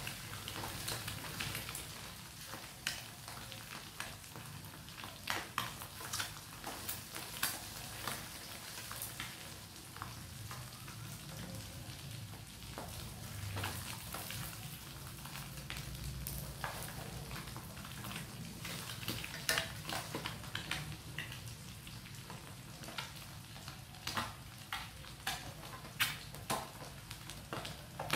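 Boiled quail eggs frying in hot oil in a pan: a steady sizzle with frequent sharp crackles and pops.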